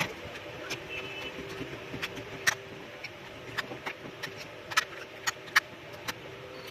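Irregular sharp clicks and taps of small plastic parts as a true wireless earbud is pried open by hand, over a steady low hum.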